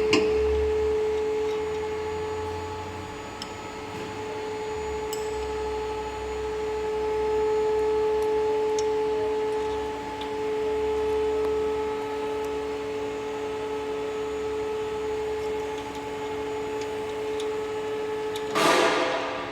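Steady electric motor hum at a constant pitch, with a low rumble coming and going beneath it. The hum stops near the end, followed at once by a short burst of noise.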